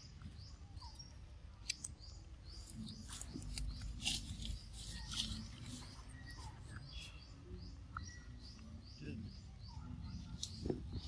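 Young pig-tailed macaque chewing and smacking on a piece of ripe mango, with small wet clicks, while birds chirp in quick short notes all around.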